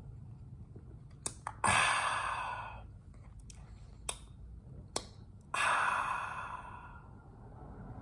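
A man sipping coffee, with small mouth clicks and sips, and two long sighs of breath after the sips, about two seconds in and again about five and a half seconds in, each starting suddenly and fading away.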